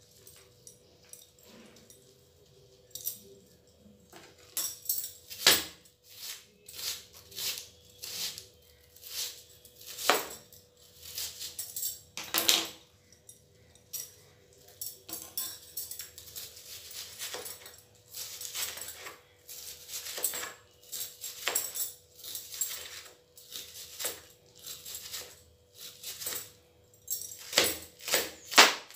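Onion being peeled by hand: irregular crackles and taps, with bangles clinking on the wrists. Near the end, quick knife strokes chop the onion on a plastic cutting board.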